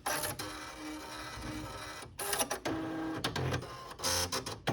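Nakajima WPT-150 electronic typewriter being switched on: its carriage and printwheel motors whir and clatter as the mechanism resets, with a brief pause a little over two seconds in, then a run of sharp clicks.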